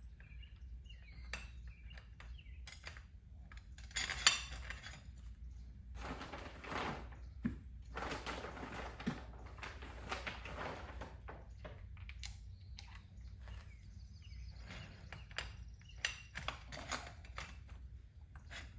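Metal tools and parts clinking and knocking irregularly during hand work on skid steer undercarriage parts, with a sharp clank about four seconds in.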